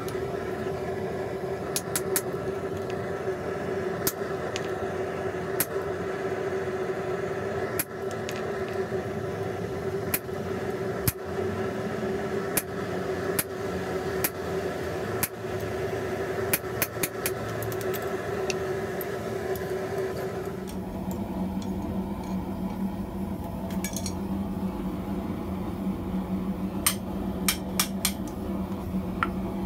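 Hand hammer striking a chisel held in tongs to cut into a red-hot steel bearing ring on a small steel anvil: sharp metal-on-metal strikes, spaced irregularly, with a quick cluster near the end. A steady hum runs underneath and drops in pitch about two-thirds of the way through.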